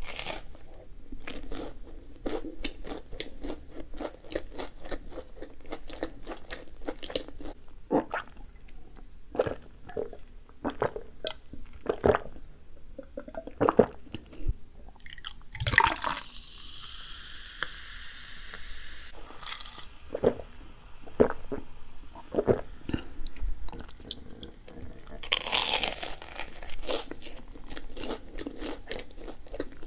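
Close-miked chewing of a Japanese corn dog (American dog): a dense run of small crunching, wet mouth clicks from the fried batter. About halfway through, the chewing pauses for a sip from a glass, and near the end there is another crunchy bite.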